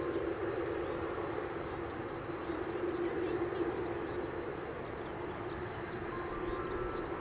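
Twin-jet airliner on final approach with its landing gear down, its engines making a steady drone with a held tone. Short high chirps repeat faintly over it.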